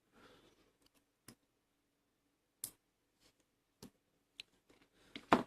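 Scattered small metallic clicks and taps from a Bi-Lock rim cylinder being taken apart by hand, its retaining C-clip pried off the core, with the loudest snap just before the end.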